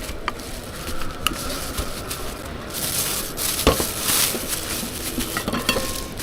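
Food sizzling as it fries, with the hiss swelling about three seconds in. Metal utensils knock and clink against the pan several times; the loudest knock comes near the middle.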